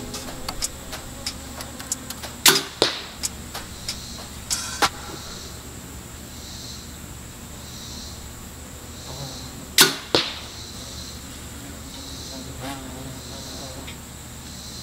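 Compound bow shots, three times: each a sharp crack of the string on release, followed about a third of a second later by the thwack of the arrow striking the target.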